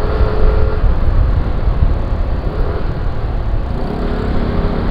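Riding noise from a Yamaha NMAX scooter on the move: steady wind rumble on the microphone with road and engine noise, and faint engine tones coming through near the start and again near the end.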